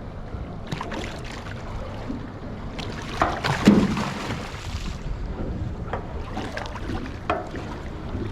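Knocks and handling noises aboard a small boat, with wind on the microphone; the loudest knock comes about halfway through.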